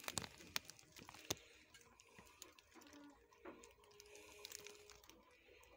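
Quiet aviary sound: a few sharp clicks in the first second and a half, then faint, soft calls of zebra finches.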